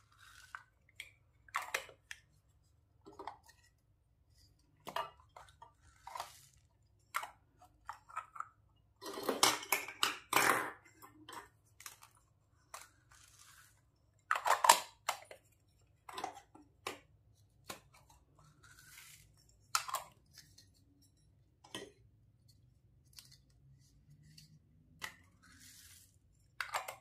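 Plastic toy capsules filled with foam beads being handled, opened and emptied onto slime: a string of short plastic clicks and rustles with quiet gaps. The longest, loudest stretches come about nine to eleven seconds in and again near fifteen seconds.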